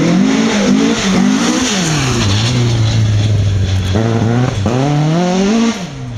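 Ford Escort Mk2 rally car's engine revving hard, its pitch rising and falling with gear changes and lifts in the first two seconds, settling to a steadier lower note in the middle, then climbing again under acceleration before a lift near the end.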